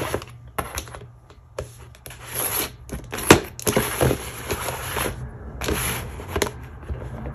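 Nail art foil packaging being handled: crinkling and rustling of plastic packs with scattered sharp clicks and taps. The loudest is a sharp click about three seconds in.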